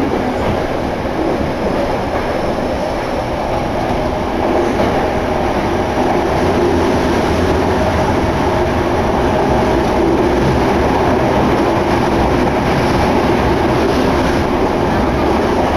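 Yokohama Municipal Subway Blue Line train running between stations, heard from inside the passenger car: a loud, steady rumble of wheels and motors.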